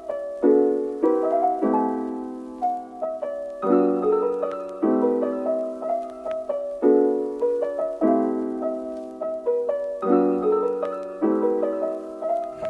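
Background music: a soft piano playing slow chords, a new chord struck about every second and left to fade.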